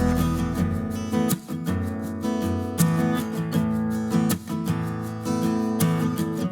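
Background music led by strummed acoustic guitar, with regular note changes.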